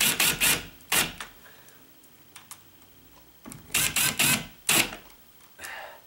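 Cordless drill/driver run in short trigger bursts, driving screws through a door hinge into the jamb: a few quick bursts at the start, one about a second in, a cluster of about four around four seconds in, and a fainter one near the end.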